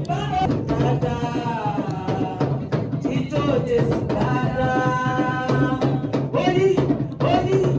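Music with a singing voice over drums and percussion, the singer holding one long note about halfway through.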